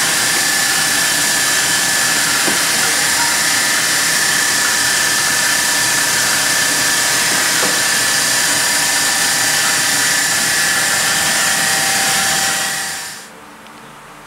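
Paver shot blasting machine running: a steady loud hiss with a steady high tone and motor hum. It fades out about a second before the end.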